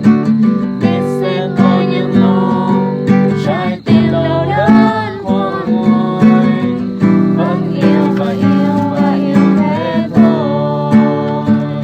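A song on strummed acoustic guitar, with a voice carrying the wavering melody over the chords.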